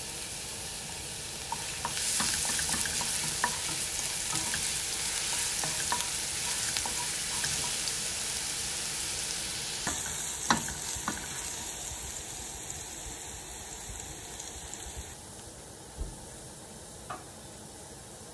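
Minced garlic sizzling in hot olive oil in a nonstick skillet, stirred with a wooden spatula that clicks and knocks against the pan now and then. The sizzle gets louder about two seconds in and dies down over the last few seconds.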